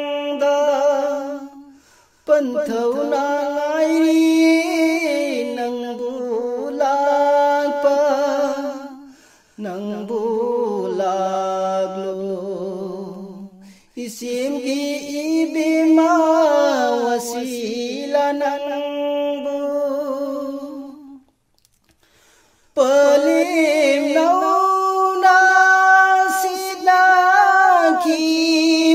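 Solo voice singing a naat, an Islamic devotional song, unaccompanied, in long held melodic phrases with short breaks between them.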